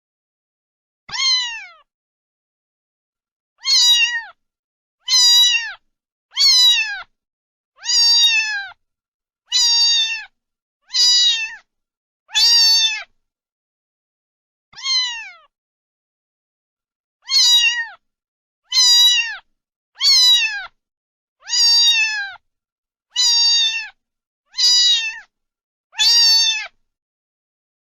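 Domestic cat meowing over and over, about sixteen short meows that each fall in pitch at the end, mostly a second or so apart, with a few longer pauses and complete silence between them.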